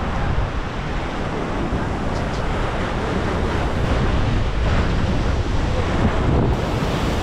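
Wind buffeting the microphone over breaking ocean surf, a steady rushing noise heaviest in the deep low end.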